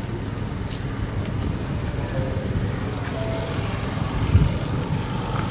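A steady low outdoor rumble, with a brief louder thump a little past four seconds in.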